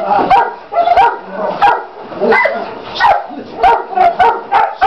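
Young dogs barking hard and repeatedly, about two to three barks a second, as they are agitated by a decoy with a bite tug in protection training.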